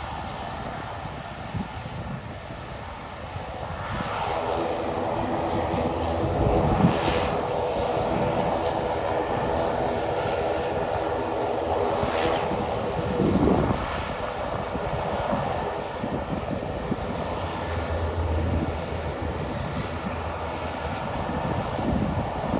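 Amakusa Airlines ATR 42 turboprop taxiing, its engines and propellers running with a steady drone. The drone swells about four seconds in and its propeller hum drops away about thirteen seconds in.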